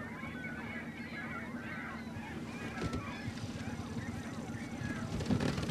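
A flock of birds calling continuously, many short honking calls overlapping one another, over a steady low hum.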